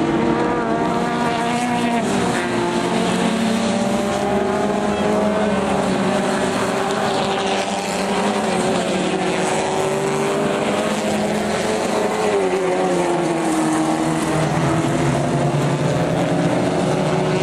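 A pack of dirt-track racing cars running hard, several engine notes overlapping and rising and falling in pitch.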